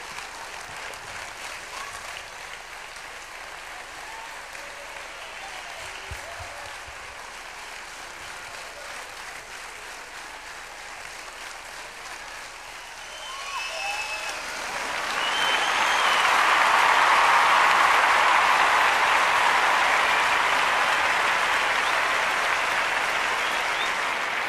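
Large theatre audience applauding, the clapping swelling much louder about fifteen seconds in and holding there.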